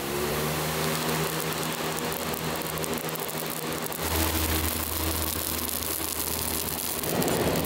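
Electric floor fan running steadily, its motor humming under a rush of air as it blows onto the wood fire stacked around a barrel roaster to drive the flames. A deeper rumble joins about four seconds in, and the fire's rushing noise grows louder near the end.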